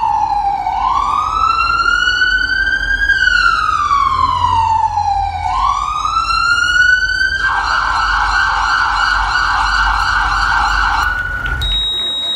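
Ambulance siren sound effect: a slow wail that falls and rises in pitch twice over a low rumble, then switches about seven seconds in to a fast warble. It holds one steady tone briefly and cuts off near the end.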